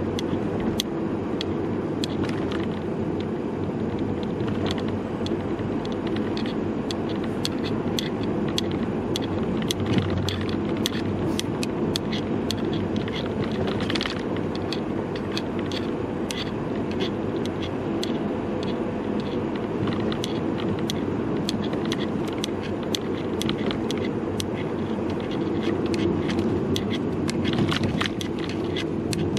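Steady road and engine noise inside a moving car's cabin, with the camera's hanging strap rattling and ticking against the car several times a second, irregularly.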